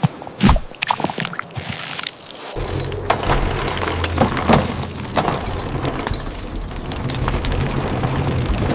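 Sound effects: a quick run of sharp crunching clicks, then about two and a half seconds in a steady low rumble starts, with crackles and splashy clicks over it.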